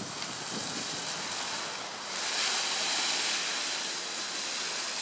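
Dry fallen leaves rustling and crunching as a radio-controlled truck drives through them. The rush swells louder about two seconds in as it plows into the deeper leaves.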